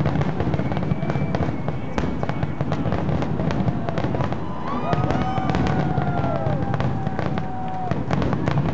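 Aerial fireworks finale barrage: shells bursting in rapid, overlapping bangs and crackles over a continuous deep rumble. Several long whistling tones sound about halfway through, some falling in pitch.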